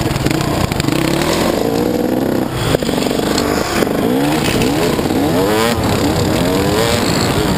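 Dirt bike engines running low at first, then revving in a series of quick rising sweeps as the bikes pull away.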